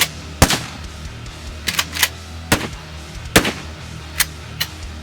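Gunshot sound effects, about nine single shots at uneven intervals, each a sharp crack with a short tail, over a low background music track.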